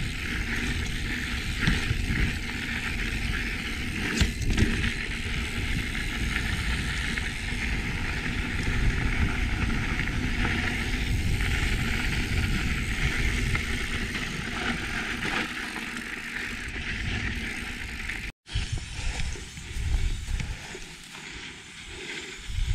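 Mountain bike rolling over a rough dirt trail: steady tyre and rumble noise with occasional knocks and rattles over bumps. The sound cuts out for an instant about eighteen seconds in.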